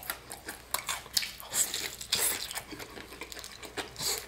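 Close-up eating sounds: chewing, with irregular small crackles as a fried chicken drumstick in a hard tanghulu sugar-candy coating is torn apart by hand.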